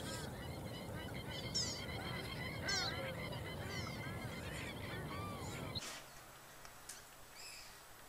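A chorus of wetland birds calling: many short, arched honking calls repeating and overlapping, with higher descending chirps among them. A low rumble under the calls drops away about six seconds in, leaving the birds fainter.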